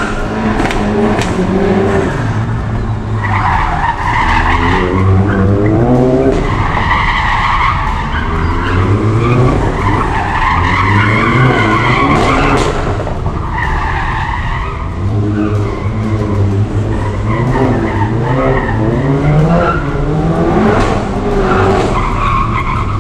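Volkswagen Golf GTI Clubsport S's turbocharged 2.0-litre four-cylinder engine driven hard around a tight cone course. It revs up and drops back again and again through gear changes and corners, with tyres squealing through the turns.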